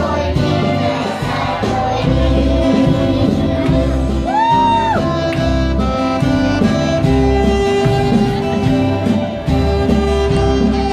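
Children's choir singing with instrumental accompaniment and a steady bass beat.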